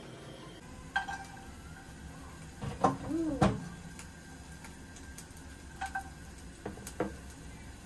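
Kitchenware clinking and knocking: a nonstick frying pan and utensils tapped and set down on a gas stove, several sharp strikes at irregular intervals.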